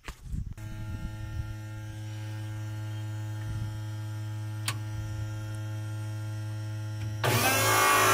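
The electric refuelling pump on a JCB 220 excavator switches on about half a second in and runs with a steady hum. About seven seconds in, a much louder rushing noise joins it.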